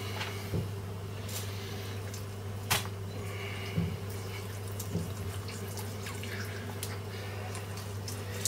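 Cold Steel Spectre knife cutting through raw chicken on a plastic cutting board: a few scattered clicks and taps as the blade works through the meat and joints, over a steady low hum.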